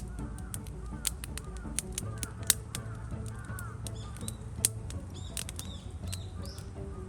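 Wood campfire crackling, with sharp irregular pops and snaps over a low steady rumble, and birds calling faintly in the background.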